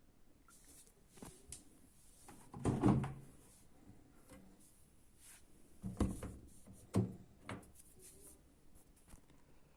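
Sharp knocks and clunks of hard objects being handled: a cluster about three seconds in, then single knocks at about six, seven and seven and a half seconds.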